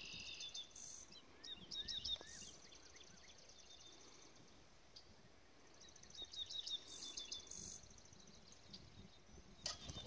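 Songbirds chirping on and off over a faint pulsing insect trill, with a short sharp rustle near the end.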